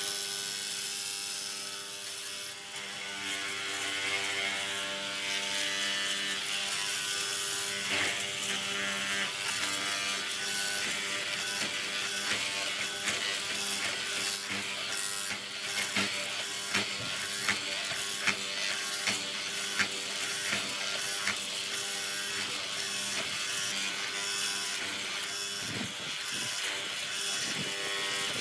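A small electric motor running steadily with a fixed-pitch hum, with irregular clicks and rattles of a mechanism, thickest in the middle.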